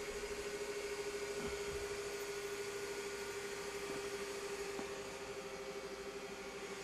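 A steady humming tone with a slight pulsing over a low hiss of workshop room tone, with a few faint clicks.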